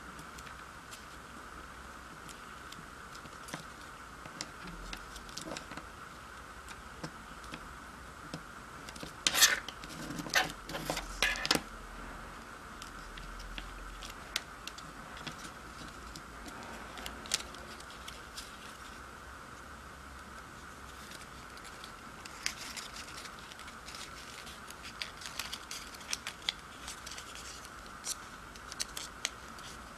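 Origami paper being folded and creased by hand: small crinkles, rustles and clicks, with a louder flurry of crackling about ten seconds in and scattered clicks again in the last third, over a faint steady hiss.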